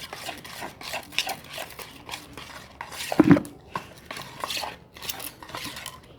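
Small spoon stirring glue and food colouring in a small plate, scraping and clicking against the dish over and over. There is one louder knock a little over three seconds in.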